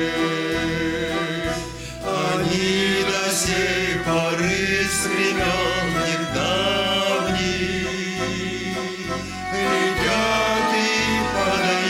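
Music: a melody over a steady, evenly pulsing bass.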